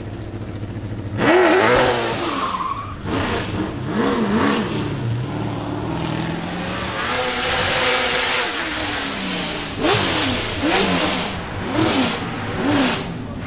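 Holden VE Commodore V8 Supercar's naturally aspirated 5.0-litre V8 running low at first, then coming in loud about a second in and revving in repeated sharp throttle blips, with steadier running between them.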